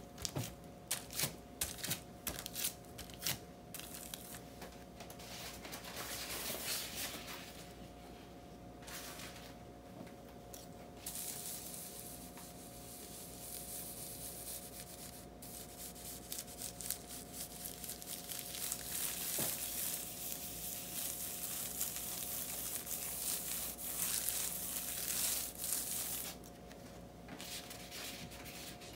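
Clear hotfix transfer tape being pressed and rubbed down over rhinestones in a template to pick up the stones. There are sharp crinkles of the plastic tape under the hands at the start. Later comes a long stretch of dry scraping as a hand tool is rubbed back and forth over the tape.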